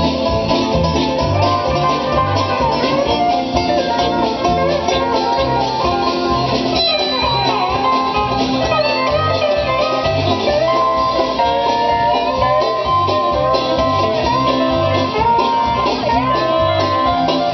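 Bluegrass music: plucked guitar and banjo with a steady beat, playing an instrumental passage without singing.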